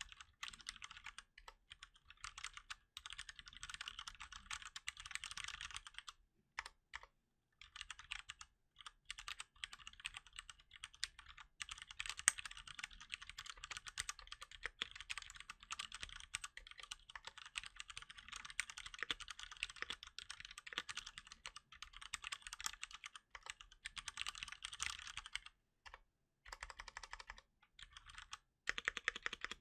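Fast, continuous typing on a Cherry MX Board 3.0 S mechanical keyboard with Cherry MX Brown tactile switches, keys struck bare without a cover, with a couple of brief pauses, about a quarter of the way in and near the end.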